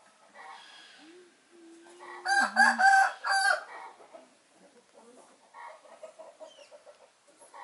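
A loud animal call made of several quick pulses, lasting a little over a second, about two seconds in, with softer calls at intervals around it.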